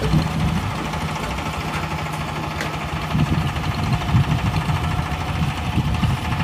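A boat's Tianli 1130 single-cylinder diesel engine running steadily with a low, rapid knocking beat.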